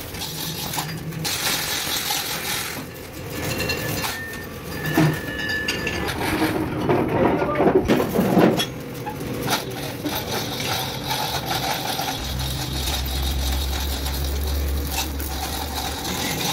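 Metal parts clinking and tapping against each other, with a low hum that comes in about twelve seconds in.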